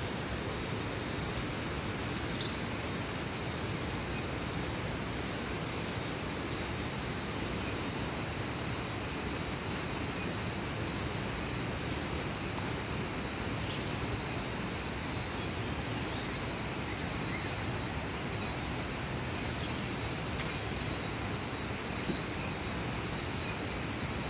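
Steady outdoor rushing noise with a constant high-pitched insect drone running through it.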